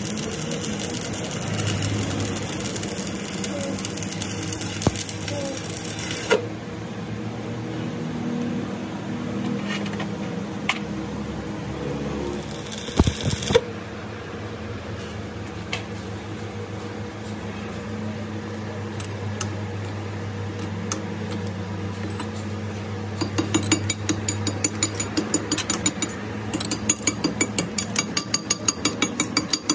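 Electric arc welding on a truck drop spindle's shaft: a steady crackling hiss for the first several seconds over a steady machine hum. The hum carries on with scattered clicks, and in the last several seconds a fast run of sharp clicks, several a second, starts up.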